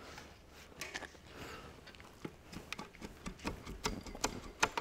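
Irregular light metallic clicks and knocks from hands working on the loosened cast-iron cylinder head and valve gear of a 1929 McCormick Deering engine. They come more often and louder over the last couple of seconds.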